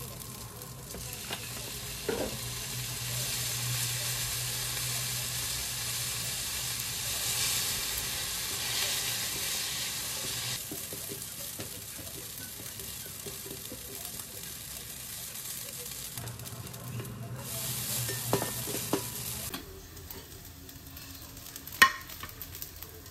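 Yakisoba noodles sizzling in oil in a nonstick frying pan while they are stirred and pressed with long chopsticks, which tap against the pan now and then. The sizzle is loudest in the first half, dies down near the end, and there is a sharp clink as the pan meets the plate the noodles are tipped onto.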